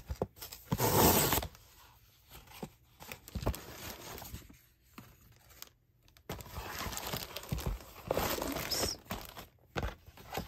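A parcel being opened by hand: packaging torn and rustled in several uneven spells, the loudest about a second in, with small knocks and handling noises between.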